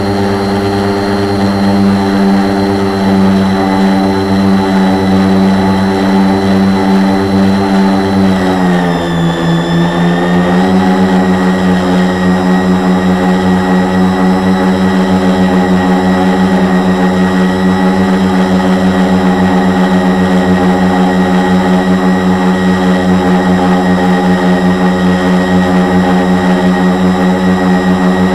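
Four Multistar 2212 920kv brushless motors spinning 10x4.5 propellers on a 450 quadcopter, heard up close from a Mobius action camera mounted on the frame: a loud, steady buzzing hum. About eight seconds in the pitch drops for a couple of seconds as the throttle eases, then climbs back and holds steady.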